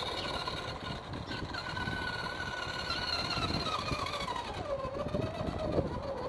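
Electric motor and gear whine of an FTX Outback Texan RC crawler running on a 3S battery as it crawls slowly, the pitch holding steady and then falling about four to five seconds in as it slows down, over irregular scuffing from the tyres on the ground.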